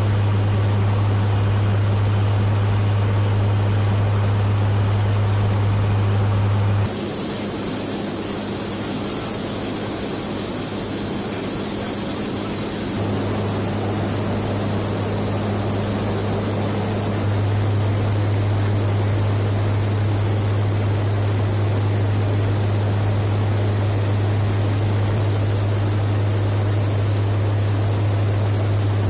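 Steady drone of a KC-130J tanker's four turboprop engines, with a strong low hum. The sound drops and turns hissier about seven seconds in, then comes back in steps.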